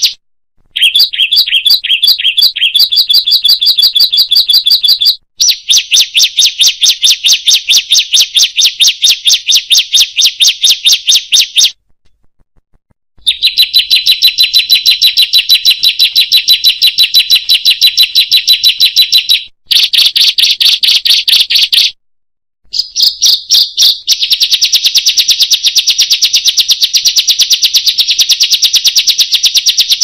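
Recorded song of ciblek birds, three master tracks mixed into one: long, very fast, high-pitched trills of rapidly repeated notes, coming in several bouts broken by short gaps.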